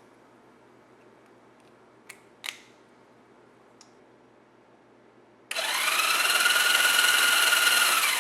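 Honda CB175's electric starter motor cranking the twin-cylinder engine over with the spark plugs out, so there is no compression, while spark is being checked. It starts suddenly about five and a half seconds in as a whine that rises briefly in pitch, then runs steadily for about three seconds; a couple of faint clicks come before it.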